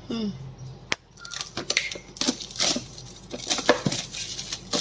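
Scattered short clicks, taps and rustles of an earbuds box and its packaging being handled and crinkled.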